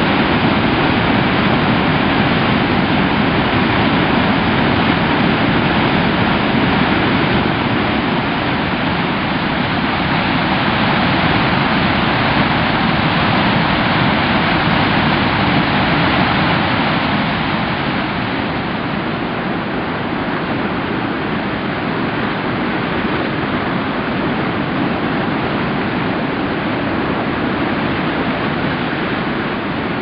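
Ristafallet waterfall's white water rushing and churning over rock: a loud, steady roar of water that grows a little quieter just past halfway through.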